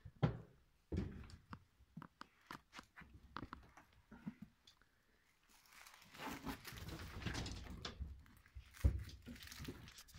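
Scattered thuds and knocks with rustling hay and straw from movement in a hay-littered wooden rabbit pen. A longer stretch of rustling comes about six seconds in, and a sharp thud near the end.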